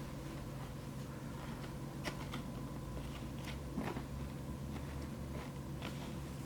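Faint handling noises of a sneaker being turned in the hands: a few light clicks and crinkles, over a steady low hum.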